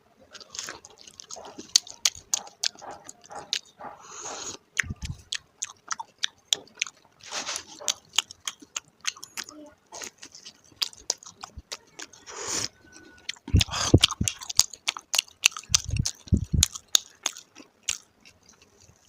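Close-miked chewing and biting of crispy paratha: a dense, irregular run of sharp crunchy clicks, with a few dull low thumps about two-thirds of the way through.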